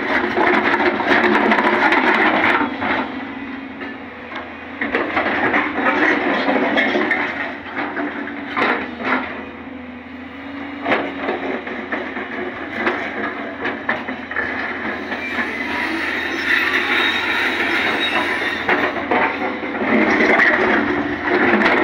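JCB crawler excavator working on rock and gravel: its engine running under the metallic clanking, squealing and scraping of steel tracks and bucket, with sharp knocks now and then.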